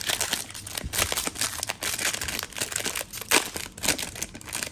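Foil wrapper of a 2023 Topps Series 2 baseball card pack crinkling and tearing as it is ripped open and peeled off the stack of cards. The crinkling is a dense run of sharp crackles, with one loud crackle about three seconds in.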